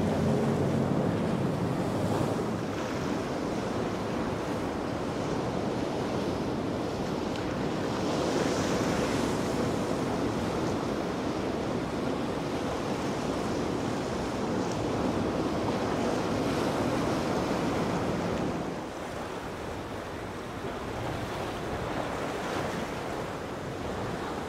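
Waves breaking and churning, with wind buffeting the microphone; the noise eases somewhat about three-quarters of the way through.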